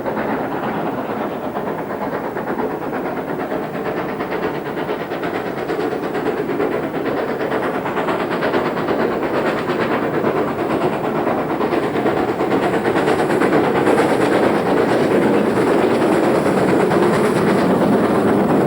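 Great Western Castle-class four-cylinder 4-6-0 steam locomotive Nunney Castle working a train, its exhaust and running gear growing steadily louder as it draws near.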